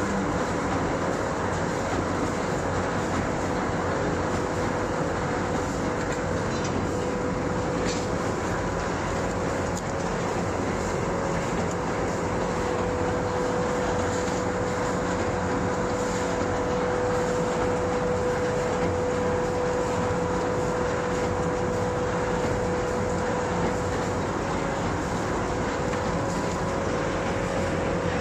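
Lead-edge-feeder two-colour flexo printer-slotter machine for corrugated board running steadily: a continuous mechanical clatter and drone with a steady whine over it.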